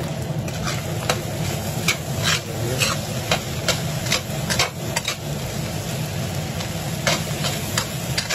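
Fried rice sizzling steadily in a stainless steel frying pan as a metal spoon stirs it. The spoon scrapes and taps against the pan about twice a second, with a short lull in the middle.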